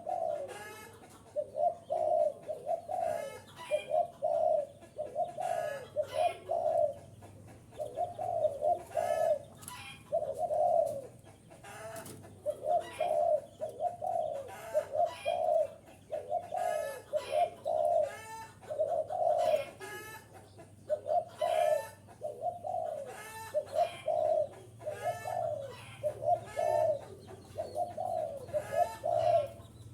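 Spotted dove cooing over and over, a run of short low phrases about every one to two seconds, with short high chirps among them. It is the kind of call used to lure wild doves in.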